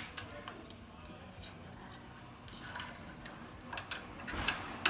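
Scattered small metallic clicks and light scraping of a 2.5 mm Allen wrench working two small screws out, the clicks coming more often in the second half.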